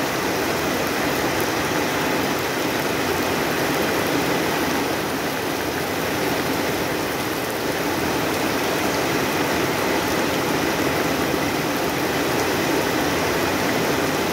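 Heavy tropical rain falling steadily, a dense even hiss with no breaks.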